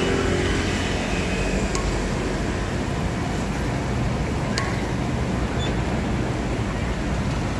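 Battered pieces deep-frying in a large wok of hot oil, a loud steady sizzle over a low rumble, with two sharp clicks as a wire-mesh skimmer stirs the pieces.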